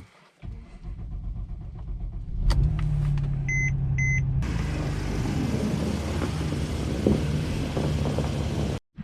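A car running with a low rumble and a steady hum. Two short electronic beeps sound about three and a half seconds in, then a loud steady hiss of rushing air joins the engine sound until it cuts off abruptly just before the end.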